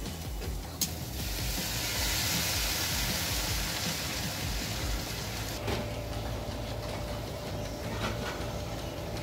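Stir-fry sizzling in a frying pan: a hiss that swells about a second in and eases after about five seconds, over a steady low rumble, with a few light clicks.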